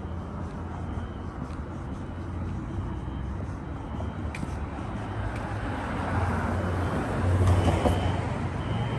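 Street traffic with a vehicle passing, loudest about seven and a half seconds in. Behind it a faint high horn tone comes and goes, a fire alarm horn sounding inside a building.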